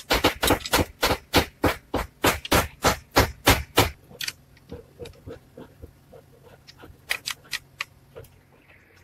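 A metal spanner clicking as it tightens nuts on bolts through wooden joints. A steady run of sharp clicks, about three or four a second, goes on for about four seconds, then the clicks come scattered, with a short burst of them near the end.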